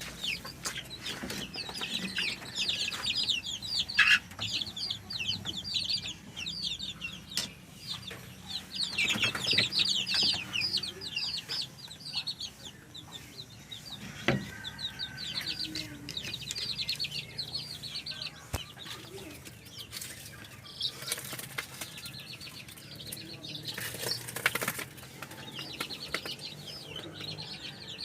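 A flock of free-range chickens calling, with many rapid high peeps and occasional clucks overlapping almost without pause.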